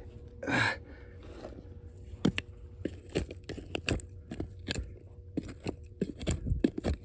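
A small hand digging tool scraping and picking at packed dirt and rubble, in a string of short, irregular scrapes and knocks, with one longer, louder scrape about half a second in.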